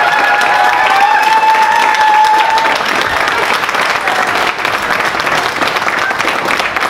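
A roomful of people applauding with steady, dense clapping, and one long high held voice over it during the first two or three seconds.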